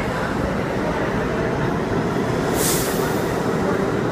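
R32 subway train pulling out of the station, its cars running past with steady wheel and motor noise. A short hiss of air cuts in about two and a half seconds in.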